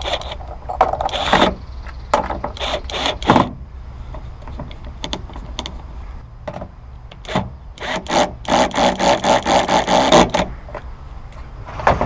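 Cordless drill driving the screw of a tie-down anchor into a truck bed rail. It runs in short bursts, then in a longer pulsing run of about two and a half seconds near the end.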